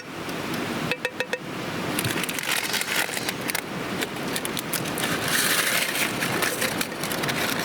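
A utensil scraping and pushing food across a plate. About a second in there are four quick, ringing metal clinks, then several seconds of scraping and rustling.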